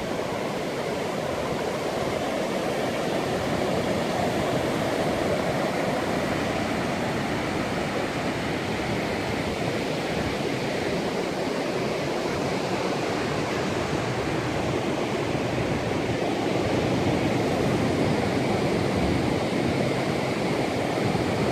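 Ocean surf breaking and washing over a rocky reef shore, a steady rushing noise that swells gently now and then.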